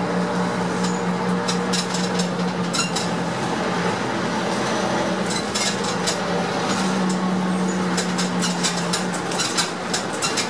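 Interior of a Heuliez GX417 articulated city bus on the move: a steady engine hum that eases about a third of the way in and comes back about two-thirds in, with frequent clinks and rattles from the cabin fittings.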